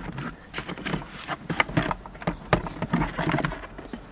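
Hard plastic glove box door of a Skoda Octavia 3 being pulled up and worked off its lower supports: a string of irregular clicks and knocks of plastic on plastic.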